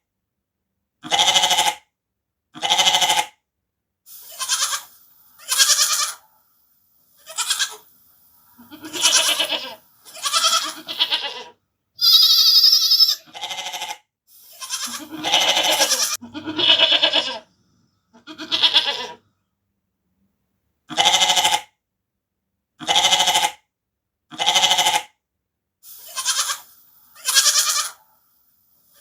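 Sheep bleating over and over: a string of about fifteen separate calls, each up to a second long, with silent gaps between them. One call about twelve seconds in is much higher-pitched than the rest.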